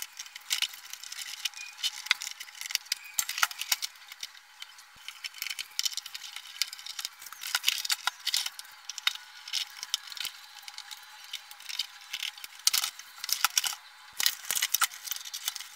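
Hands handling and turning a 3M MP8635 projector's plastic housing on a table: irregular light clicks, taps and scrapes of plastic.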